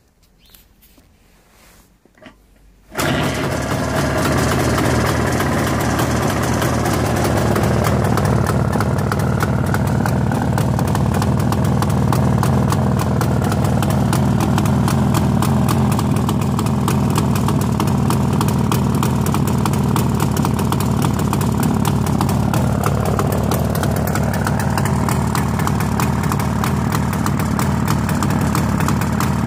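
A 1983 Jawa 634's 350 cc two-stroke twin engine starts suddenly about three seconds in and then idles steadily and loudly.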